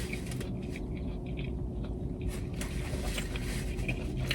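A person chewing food, with scattered small crunching clicks, over a steady low hum.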